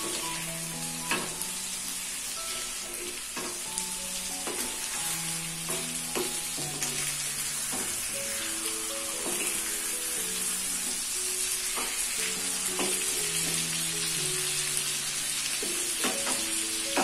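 Chicken sizzling steadily in melted butter in a pan as it is basted, with a spoon clicking now and then against the pan. Soft background music with sustained notes plays underneath.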